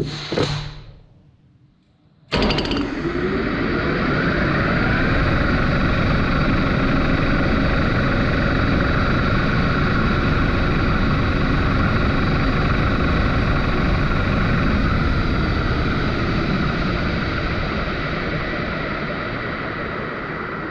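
Metal lathe switching on and spinning up to about 1400 rpm, with a camera and glow sticks in its chuck. It starts suddenly a couple of seconds in, rises in pitch as it spins up over the next few seconds, then runs as a steady loud rushing drone with a whine, easing slightly near the end. A couple of short knocks come just before the start.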